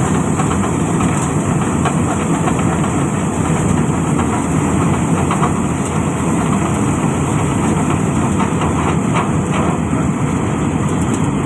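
Dasmesh combine harvester running steadily while its unloading auger pours grain into a trailer: a dense, heavy mechanical rumble with a fast, continuous rattle over it.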